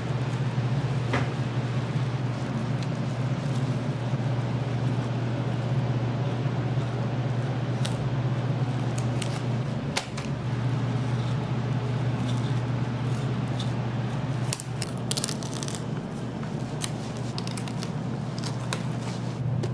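Kitchen sounds at a barbecue grill: scattered sharp crackles and clicks, thickest about fifteen seconds in, over a steady low hum.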